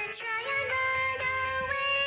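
Music with a high-pitched melody of held notes stepping up and down in pitch.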